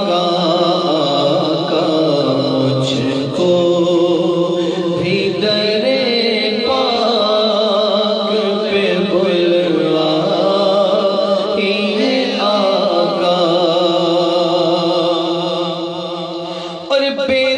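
A man singing a naat (an Urdu devotional praise poem) into a microphone, drawing out long, wavering, ornamented notes with no clear words.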